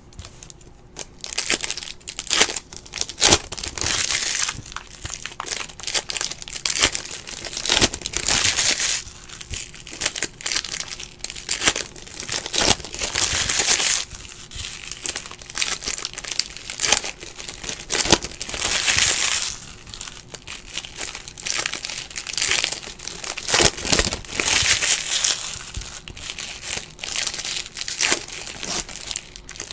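Foil wrappers of Bowman Chrome baseball card packs crinkling and tearing as they are ripped open by hand, in repeated bursts every few seconds.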